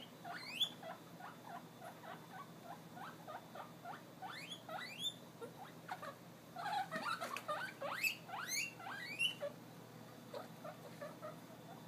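Guinea pigs wheeking: a run of short, repeated squeaks broken by long, rising whistles, loudest in a burst a little past the middle. It is their excited call for food, set off by hearing vegetables being prepared.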